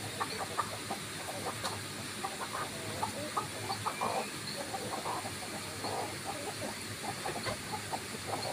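Domestic chickens clucking as they forage, with short, scattered clucks over a steady background hiss.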